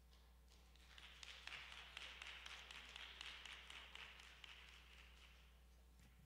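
Faint, scattered applause from a small audience, building about a second in and dying away near the end.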